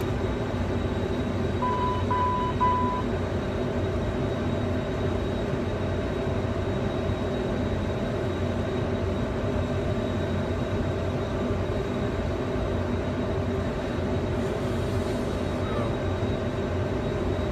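Twin jet engines running steadily at takeoff thrust with bleed air off, heard from inside the cockpit as a constant drone. Three short beeps sound about two seconds in.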